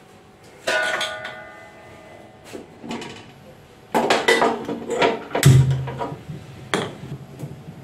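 A metallic clang that rings on briefly about a second in, then a series of sharp clicks and knocks as a gas stove burner is lit under an aluminium idli pot.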